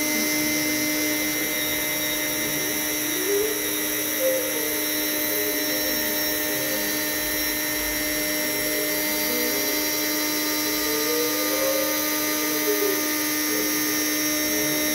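CNC router spindle running steadily with a constant whine while a 0.5 mm conical bit carves birch plywood. Over it, the drive motors' whine rises and falls in pitch every few seconds as the head moves along the cut.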